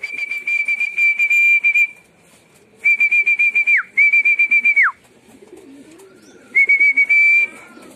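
Whistling to call homing pigeons down to the loft: four high, warbling whistle blasts. The first is long, the next two each end in a sharp downward slide, and a shorter one comes near the end.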